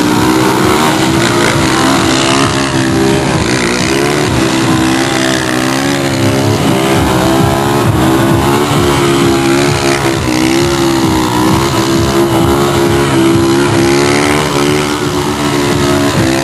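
Loud vehicle engines running at raised revs, their pitch wavering up and down as the throttle is worked.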